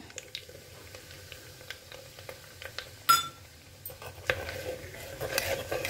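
A steel spoon stirring spice powders into hot oil in a soapstone kal chatti, with light scraping and clinks of metal on stone over a faint sizzle. There is one sharper, briefly ringing clink about three seconds in.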